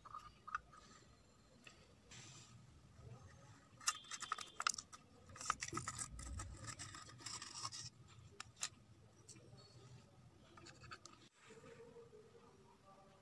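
Aluminium foil crinkling and rustling as it is peeled off a small steel tin, loudest in the middle, with light clicks and scrapes of the tin being handled.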